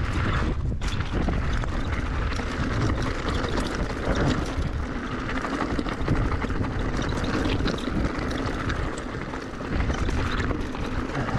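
Mountain bike rolling over a stony trail: tyres crunching and the bike rattling with many short knocks, over heavy wind buffeting the handlebar-mounted camera's microphone.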